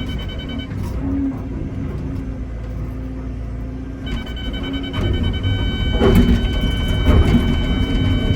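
Excavator's diesel engine running, with the bucket scraping and knocking against solid shelf rock. About four seconds in the engine and hydraulics come under load, adding a steady high whine, and the knocks grow louder.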